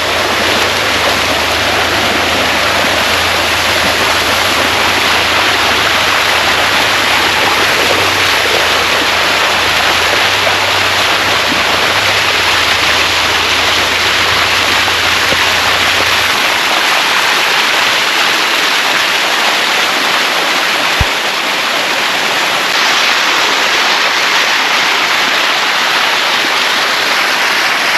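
Water rushing steadily down a rocky waterfall cascade, heard close up. A low rumble underneath stops a little past halfway.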